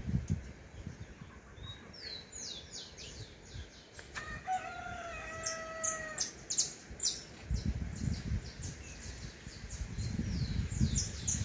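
A rooster crows once, a held call of about two seconds starting about four seconds in, while small birds chirp repeatedly with short, high, falling notes. Bursts of low rumble come near the start and twice in the second half.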